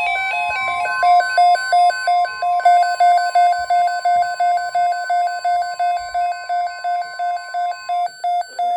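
Emergency weather alert tones for a severe thunderstorm watch: a steady warning tone near 1 kHz, NOAA Weather Radio's alarm, sounds under rapid electronic beeps pulsing several times a second. The steady tone stops about eight seconds in while the beeps carry on.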